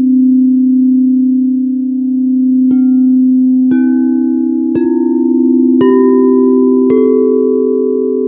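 Singing bowls: a deep bowl rings steadily while five bowls are struck about a second apart, each a step higher in pitch and each left ringing.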